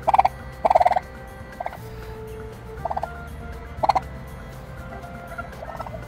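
Turkey calling: about six short calls, each a quick run of pulses, with the loudest two in the first second.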